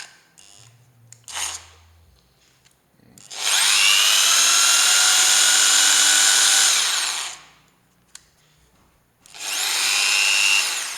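JLD impact drill motor run with no bit in the chuck: a high whine that rises as it spins up, runs steadily for about four seconds and winds down, then a second shorter run near the end.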